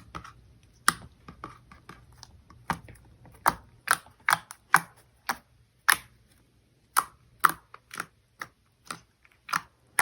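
Slime being squeezed and poked by hand, making sharp, irregular clicks and pops, about two a second.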